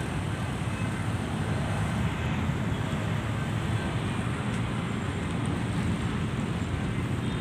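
Steady low rumble of distant road traffic, with wind on the microphone.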